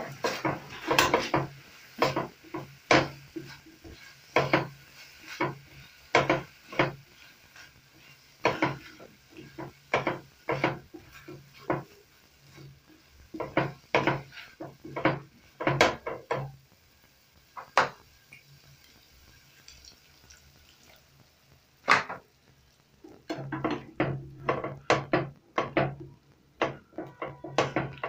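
A spatula stirring a chicken and broccoli stir-fry in a non-stick frying pan: irregular scrapes and knocks of the spatula against the pan. There is a pause of a few seconds about two-thirds of the way through.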